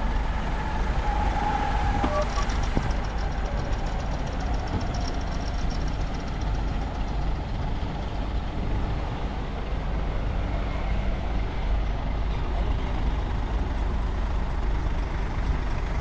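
Heavy diesel earthmoving machinery running steadily, a deep continuous rumble, with a fast high rattle for a few seconds near the start.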